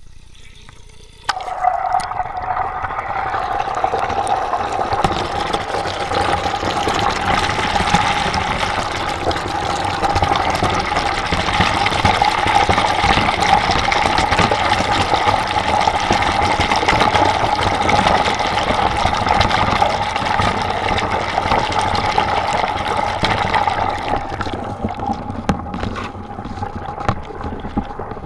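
Shower water switched on about a second in and running steadily, spraying onto and around the Tachyon XC micro action camera that is recording it, with a steady tone running through the flow. The spray gets lighter near the end.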